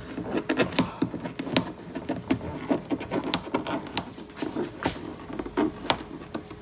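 Irregular small clicks and taps, a few a second, as a rubber boot seal is pressed by hand and tucked along the plastic boot sill trim.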